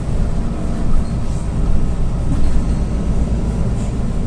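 Inside a NefAZ-5299 low-floor city bus under way: the steady low rumble of its engine and road noise, with a few faint ticks and rattles from the body.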